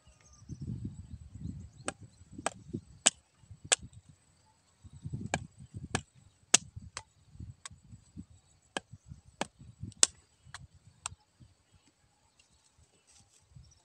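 Machete chopping cassava stems into short cuttings: a series of sharp chops about two a second, four in a first run and about ten in a second, with low handling noise around the early strokes.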